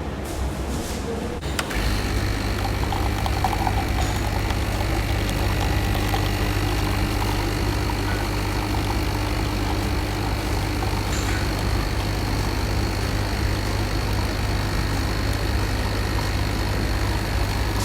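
Dolce Gusto capsule coffee machine's pump running with a steady, loud low hum that steps up about two seconds in and then holds level: the machine brewing.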